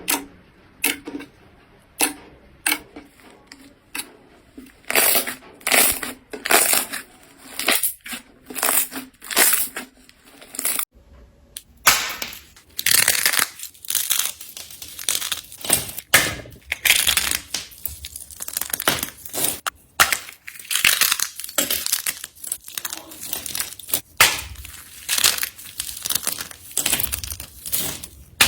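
Slime being pressed, poked and squeezed by hand, giving a run of sharp snaps and crackles, one or two a second at first; after a short break about eleven seconds in, the crackling becomes denser and longer.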